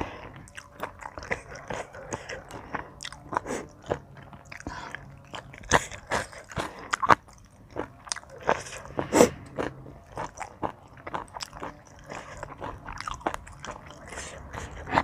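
A person biting and chewing crunchy food from a spicy seafood pounded salad, up close: irregular crunches and wet clicks, with a few louder bites about six and nine seconds in.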